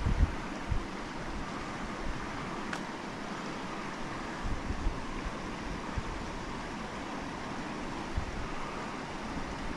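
Small mountain creek running over a shallow, rocky bed: a steady rushing hiss, with a few low wind buffets on the microphone.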